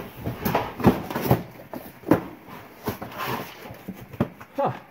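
Irregular knocks and clunks of toys and books being handled and set down while a box is unpacked.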